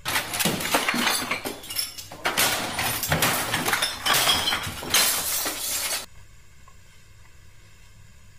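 Glass and household objects being smashed, with a rapid string of crashes and clattering impacts for about six seconds that then stops abruptly.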